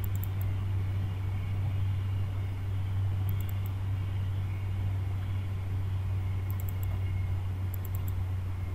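Steady low hum with a faint hiss from the recording microphone, and a few faint double clicks of a computer mouse.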